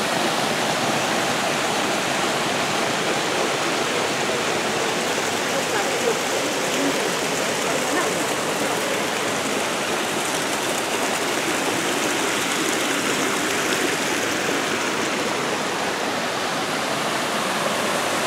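Water running over a small rock cascade and splashing into an ornamental garden pond: a steady, even rush.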